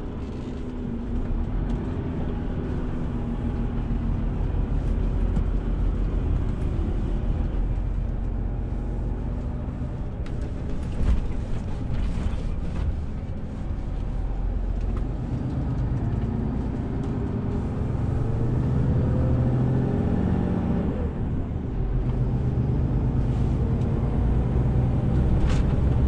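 Renault T 460 truck's diesel engine running on the road, a steady low drone whose pitch climbs about fifteen seconds in and falls back a few seconds later. A few short knocks come around the middle.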